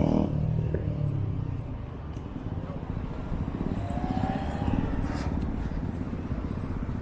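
Busy street ambience dominated by the low, steady rumble of a road vehicle's engine running close by, with faint voices in the background.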